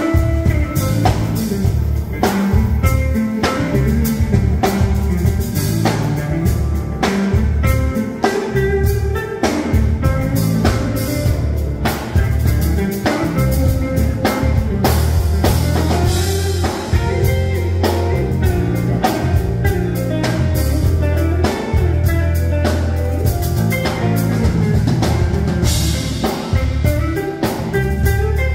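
Live band playing an upbeat number: electric guitars, bass and keyboards over a steady drum-kit beat.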